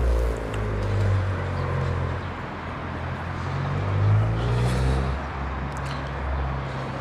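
Road traffic: vehicle engines running low and steady, swelling as cars pass.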